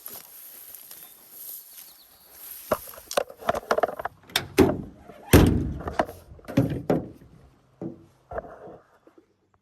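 A series of irregular knocks and clunks, like gear or wood being handled, loudest about five seconds in and fading out near the end.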